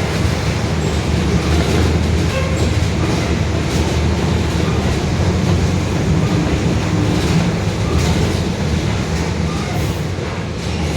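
Mercedes-Benz OF-1721 city bus under way, its differential growling very loud: a steady low drone over the running noise.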